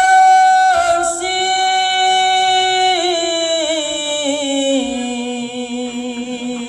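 A man singing a long, drawn-out, high melodic line into a microphone through a loudspeaker, holding one note for a few seconds before stepping down to a lower held note. It is a mimicry of a mother chanting a Quran verse to a tune that is not a proper Quran recitation style.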